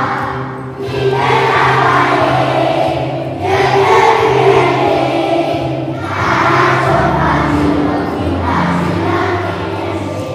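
A group of children singing together, accompanied by acoustic guitars. The singing comes in phrases with short breaks between them, over held low notes.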